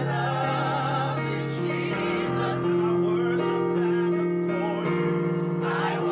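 Gospel worship song: voices holding notes with vibrato over sustained accompaniment chords.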